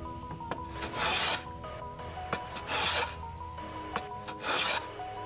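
Hand plane pushed along the edges of two clamped-together wooden boards, three rasping strokes about a second and a half apart, knocking down the high spots to true them up. Faint background music runs underneath.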